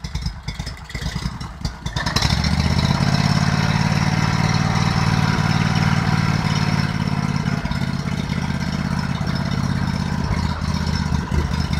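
Homemade karakat's 24 hp Lifan engine idling with a fast, even beat, then revved up about two seconds in and held at a steady, higher speed.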